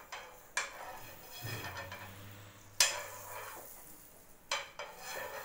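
Pav buns toasting in butter in a non-stick frying pan: a faint sizzle with a spatula scraping and knocking against the pan, three sharp knocks, the loudest just under three seconds in.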